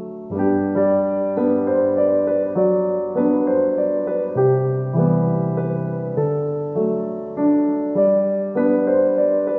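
Background piano music: a slow, gentle tune of notes struck about twice a second over held bass notes.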